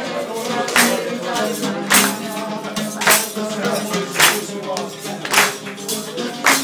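Live oud playing with a voice singing along, while a group of people claps in unison on the beat, one sharp clap about every second.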